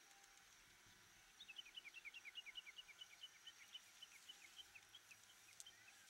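A small bird giving a fast run of short, falling chirps, about six a second, for about four seconds. The chirps start about a second and a half in and fade toward the end, over a faint steady hiss.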